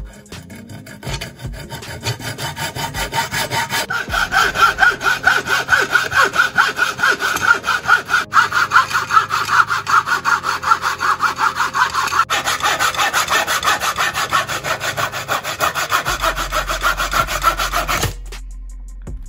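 Hacksaw blade cutting through a wooden block in fast, even back-and-forth strokes, rasping steadily. The sawing stops abruptly near the end as the offcut breaks free.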